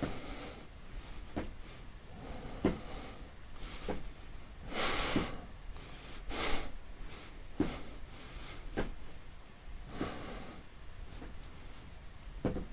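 A person breathing out sharply and rhythmically through the nose, about once every 1.2 seconds in time with alternating leg lowers during a Pilates scissors exercise, with soft taps of the feet on the exercise mat.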